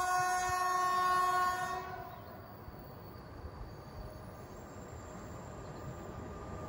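Train horn sounding one long, steady blast that cuts off about two seconds in. A quieter, steady rushing noise follows.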